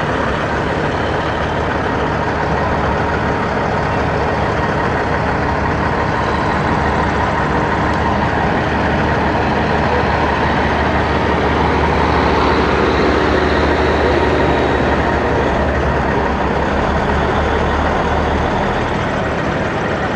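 Diesel engine of a tractor-trailer running at low speed close by, a steady low drone that grows louder through the middle and eases just before the end.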